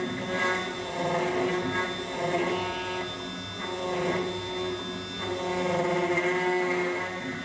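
Sec-E9 key cutting machine milling side A of a T60 dimple key blank in its dimple clamp: a continuous motor whine that swells and eases every second or two as the cutter works along the key.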